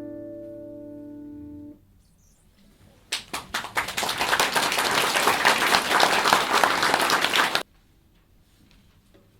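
The final chord of a classical guitar piece rings on and is damped about two seconds in. About a second later the audience applauds for four or five seconds, and the applause cuts off abruptly.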